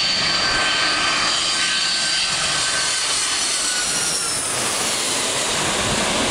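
Airliner passing low overhead on its landing approach: loud, steady engine noise with a high whine that slides down in pitch about three to four seconds in as it goes over.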